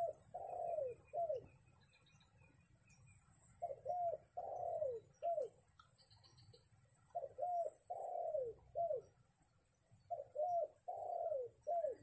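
Spotted dove (tekukur) cooing: a three-note phrase, short, longer, short, repeated about every three and a half seconds.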